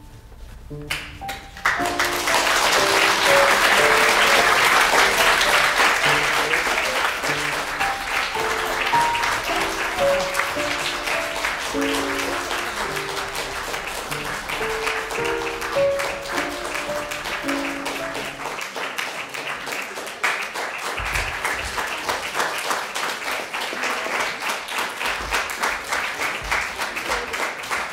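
Theatre audience applauding at a curtain call, over recorded music playing a note-by-note melody. The music stops about two-thirds of the way through and the applause carries on alone.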